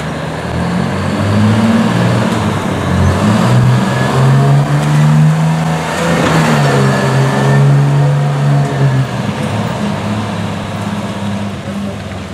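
Fire rescue truck's engine revving as it pulls out and accelerates, its pitch shifting between gears. It is loudest as it passes about six seconds in, then fades as the truck drives away.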